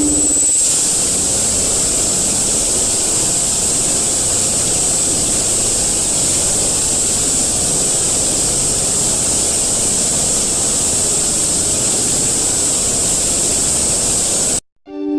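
Loud, steady hissing noise like static, with a high whine on top, cutting off suddenly near the end.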